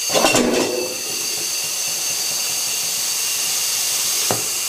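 Compressed air hissing steadily, with a thin high whistle, as it drives a hydraulic cylinder through temporary air fittings. A short louder rattle comes in the first second and a single click near the end. Leftover hydraulic fluid in the cylinder is, he thinks, making its motion jerky.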